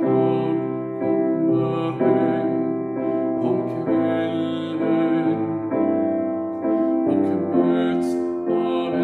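A man singing a Swedish gospel song to his own piano accompaniment.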